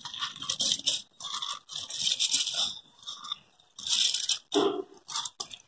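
Soaked, drained basmati rice scraped by hand out of a bowl and dropped into a pot of water, heard as a few irregular bursts of grainy rustling and scraping.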